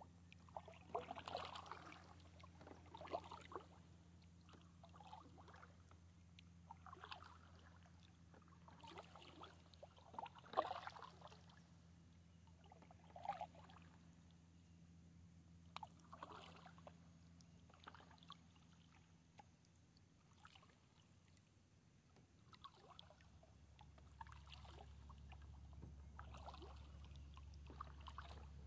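Faint, regular kayak paddle strokes on calm water: the blade dips in with a small splash and water trickles off it, about one stroke every two to three seconds.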